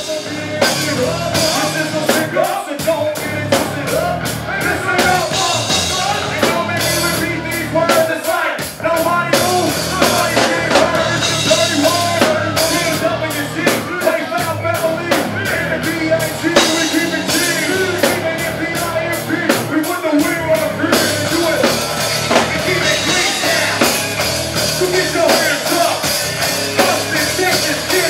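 Loud music with a driving, steady drum beat.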